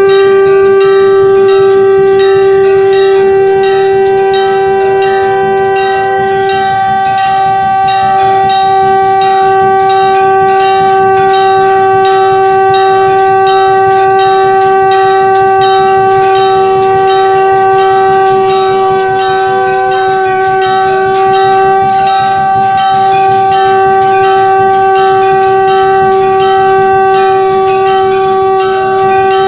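Shankh (conch shell) blown in one long, steady, unbroken note, with temple bells struck in a quick, even rhythm over it.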